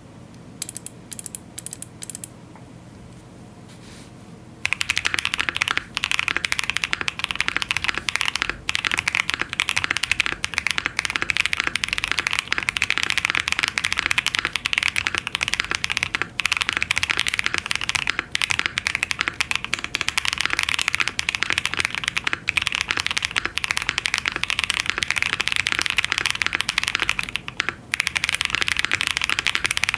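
Typing on an ai03 Vega mechanical keyboard with lubed Holy Boba tactile switches, GMK keycaps and a polycarbonate plate. A few single keystrokes near the start, then after a short pause fast continuous typing, a dense run of key clicks that eases briefly near the end.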